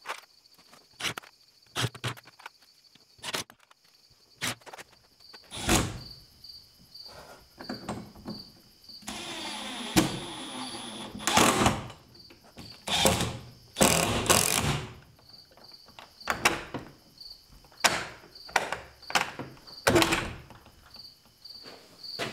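Intermittent knocks and clunks of hand work on plywood doors and their wooden frame, with a power tool whirring for a couple of seconds about nine seconds in. A cricket chirps steadily in the background throughout.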